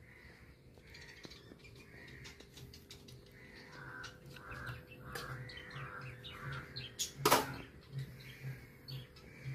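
Crows cawing over and over, the calls growing louder from about four seconds in, with one short sharp knock a little after seven seconds.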